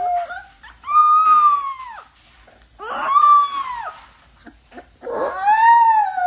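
Young puppy howling: three short howls, each about a second long, rising and then falling in pitch, the last trailing off lower near the end.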